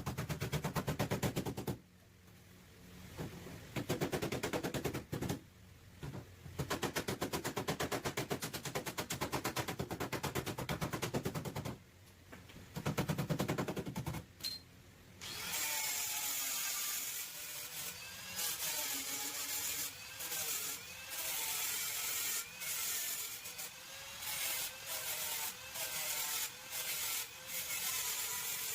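Bodywork power tools on a car's damaged rear panel. For about the first half, a tool rattles in rapid, evenly spaced strikes in bursts with short pauses. About halfway through it gives way to a steady abrasive grinding hiss whose pitch wavers, with brief breaks near the end.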